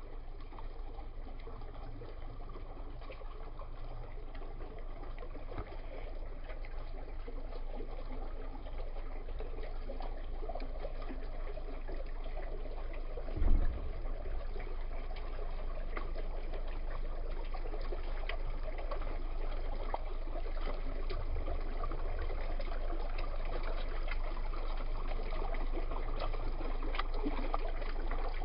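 Steady trickling, splashing running water from a water feature, with one brief low thump about halfway through.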